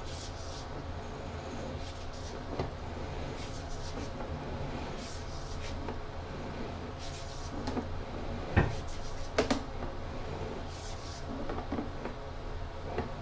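Sewer inspection camera's push cable being fed down a drain pipe: scattered knocks, clunks and scraping, the sharpest knock about eight and a half seconds in with two more a second later, over a steady low hum.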